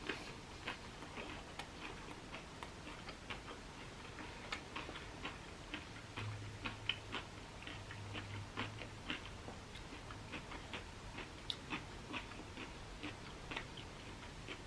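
Close-up chewing of a mouthful of cucumber, vegan sausage and cauliflower rice: many short, irregular crunches and wet mouth clicks, two or three a second. A faint low hum comes in about six seconds in and lasts a few seconds.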